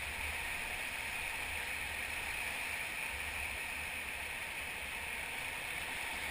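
Steady rush of river whitewater, heard from a raft, with a low rumble underneath.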